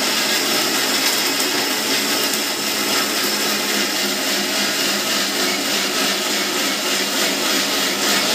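Electric mixer grinder running steadily, its steel jar grinding onions and tomatoes with a little water into a wet paste.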